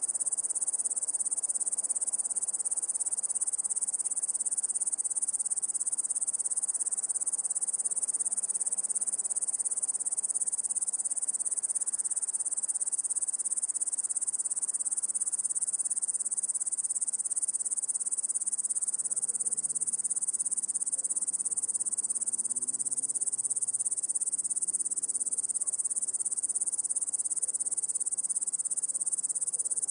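Crickets chirping in a steady, dense, high-pitched chorus. Faint distant road traffic sits underneath, with a low engine note rising in pitch during the second half.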